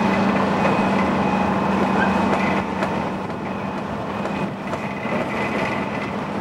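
Piling rig drilling with its continuous flight auger: steady engine and drive noise with a constant low hum and a faint higher whine, easing slightly about two and a half seconds in.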